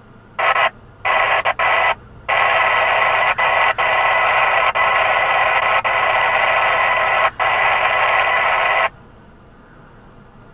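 Two-way radio receiving static: three short bursts of hiss, then a continuous hiss of about six and a half seconds that cuts off abruptly, as when a transmitter is keyed without speech.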